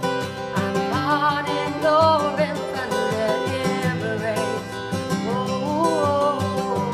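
A woman singing a slow melody, her voice gliding and wavering on held notes, accompanied by a picked acoustic guitar.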